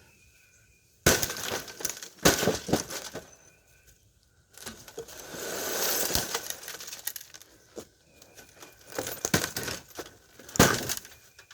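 Sledgehammer blows smashing an LG plasma TV: sharp strikes about a second in and again a second later, then a longer crash of breaking glass lasting a few seconds, and a few more blows near the end.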